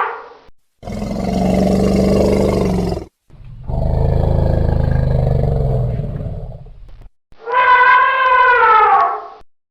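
Wild elephant calls: two long, low, rough roars, then near the end a trumpet call that falls in pitch as it ends.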